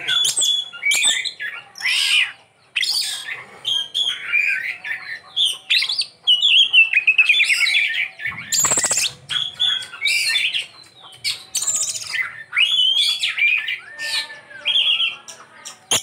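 Oriental magpie-robin (kacer) singing a fast, unbroken stream of varied phrases: clear whistles, quick trills and sharp chips. About halfway through comes one longer rasping note. The song is packed with mimicked phrases (isian).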